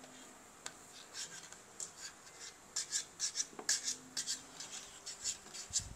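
Faint rubbing and rustling of fingers rolling a small piece of craft material into a long strip. It comes as quick brushing strokes, a few at first and a close run from about halfway through.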